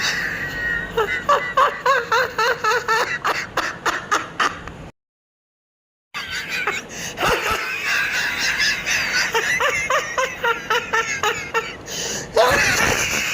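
Person laughing in quick, repeated giggles, broken by about a second of dead silence at an edit, then more laughter.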